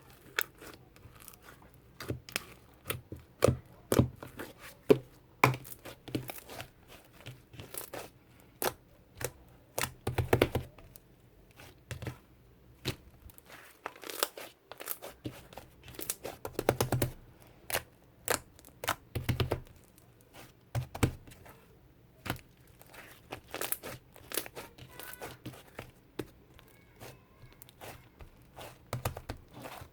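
Irregular handling noises: crinkling and tearing with many sharp taps and clicks, and a few duller knocks.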